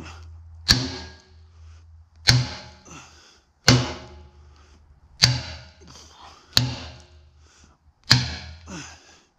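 Sledgehammer blows on steel: six heavy strikes about one and a half seconds apart, each ringing briefly. The hammer is knocking the old tines out of a muck grab's frame.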